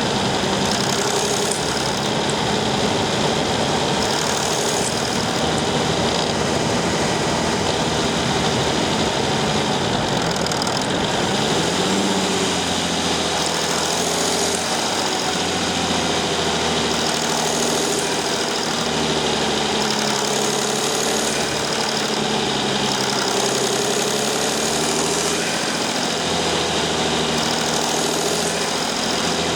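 Mercedes Sprinter 219 CDI V6 turbodiesel engine running. From about halfway its note rises and falls several times as the engine speed changes.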